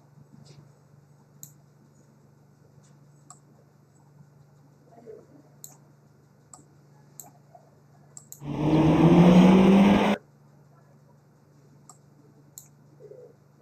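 Computer mouse clicks, scattered and faint, over a steady low electrical hum. About eight and a half seconds in, a loud sound-effect clip plays back for under two seconds, with a slightly rising pitch, and cuts off suddenly.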